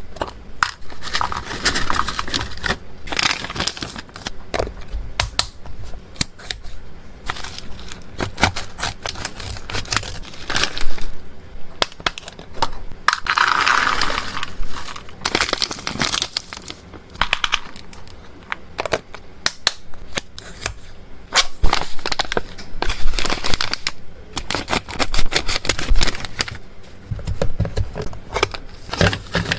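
Clip-lid plastic storage boxes being handled: many sharp clicks and taps as latches snap and lids and boxes are set down. About halfway through, freeze-dried chicken cubes are poured from a pouch into a plastic box in a brief dense rattle.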